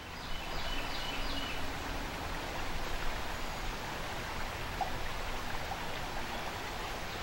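Shallow creek water running steadily over a rocky riffle, with a few faint high chirps near the start.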